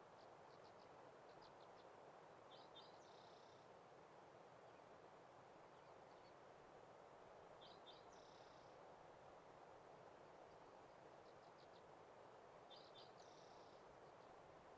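Faint outdoor ambience with a steady soft hiss, over which a songbird repeats a short high phrase about every five seconds: two quick slurred notes followed by a buzzy note.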